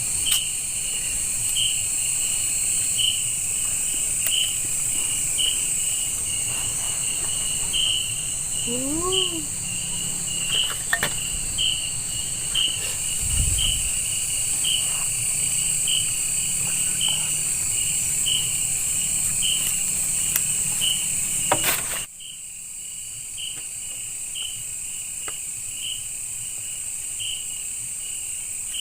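Night insects in the forest: a steady high-pitched shrill drone with a regular chirp repeating about one and a half times a second, like crickets. It drops abruptly in level about three quarters of the way through and carries on more quietly.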